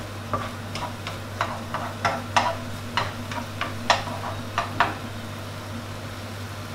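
Wooden spatula tapping and scraping against a nonstick wok while an egg is broken up and scrambled: a dozen or so irregular light knocks over the first five seconds, then fewer. A steady low hum runs underneath.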